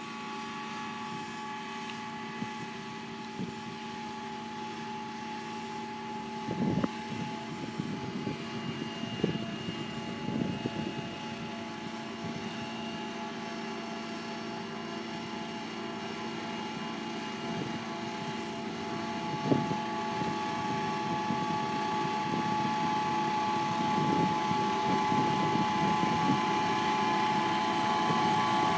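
Single-drum smooth-drum roller compacting a dirt road, its diesel engine running steadily with a steady whine, growing louder as the machine comes closer. A few short knocks sound along the way.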